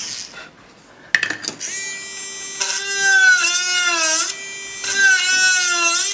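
Mini electric hand drill's small DC motor whining as it drills into wood, its pitch sagging each time the bit bites under load and recovering as pressure eases. It stops briefly near the start, a click follows about a second in, and the drill spins up again.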